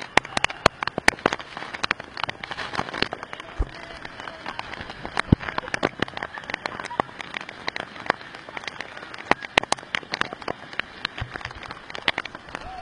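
Water drops pattering like rain, a dense irregular spatter of sharp clicks over a steady hiss.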